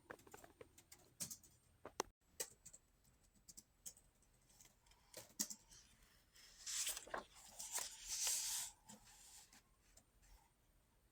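Faint, scattered clicks and light taps, with two short bursts of rustling or scraping about seven and eight seconds in.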